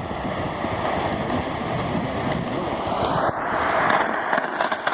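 Shortwave radio receiver tuned to a weak, low-power station buried in hiss and static, with the programme barely audible under the noise. A whistle rises in pitch about three seconds in, and a few sharp crackles of static come near the end.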